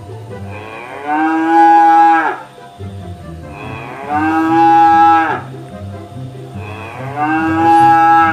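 Cow mooing three times, each moo about a second and a half long with a short rise into a held note, spaced about three seconds apart, played as a recorded animal sound.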